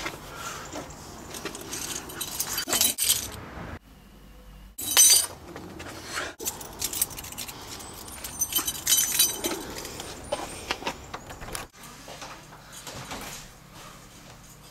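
A bunch of keys jangling and clinking in hand, in several bursts, with the sound cutting off abruptly a few times.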